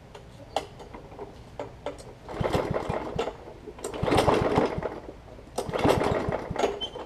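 Recoil starter of a Powermore 140cc push-mower engine pulled three times, each pull cranking the engine for about a second with rapid chugging pulses but no catch. It is a no-start that a carburetor cleaning cures.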